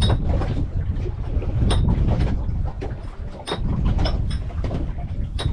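Wind buffeting the microphone with a steady low rumble, broken by a few sharp clicks and knocks.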